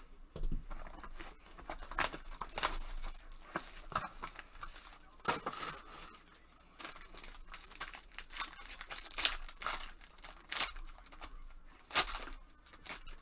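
Plastic wrapping and a foil trading-card pack wrapper from a Topps Inception box being torn open and crinkled by gloved hands: an uneven run of sharp crackles and short rips, the loudest tear about twelve seconds in.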